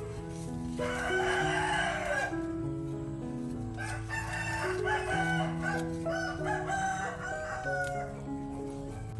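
A rooster crowing twice, about a second in and again from about four seconds in, over background music with slow held notes.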